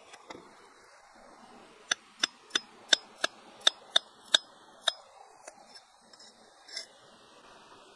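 A cleaver chopping on a flat stone slab: about ten sharp strikes at an even pace of roughly three a second, then a few lighter taps.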